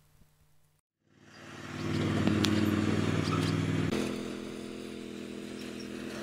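John Deere riding lawn tractor's engine running steadily as it drives. It fades in about a second in, and its pitch shifts near four seconds in.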